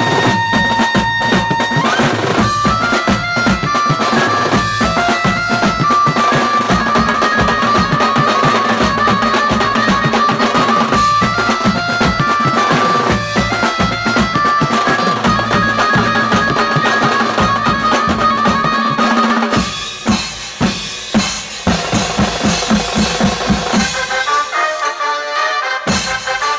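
Indian beats band drumming: several drum kits of toms, snares and cymbals with dhol, in fast dense rolls under a stepping melody line. About two-thirds through the drumming breaks into separate accented hits, and near the end the drums drop out briefly, leaving the melody before a hit brings them back.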